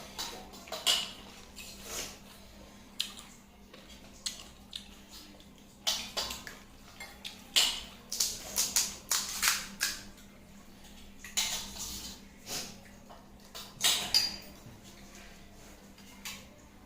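Crisp fuchka (pani puri) shells being bitten and chewed up close, in clusters of sharp crunches, with light clinks of a plate or utensil; a faint steady hum runs underneath.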